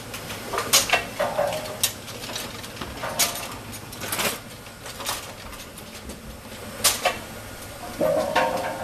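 Automatic bowling pinsetter running through its reset cycle, loading pins into the turret and deck cups: irregular clunks and clatters of pins against metal over a steady machine hum, with a busier run of clattering near the end.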